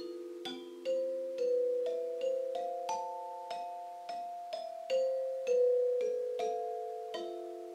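Large metallophone with metal bars, struck with two mallets, playing a slow melody of single notes about every half second. Each bar rings on long after it is struck, so the notes overlap.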